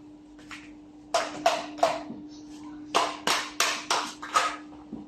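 A series of sharp metallic knocks and clinks from hand tools and parts being handled, three in quick succession and then five more about a second later, over a faint steady hum.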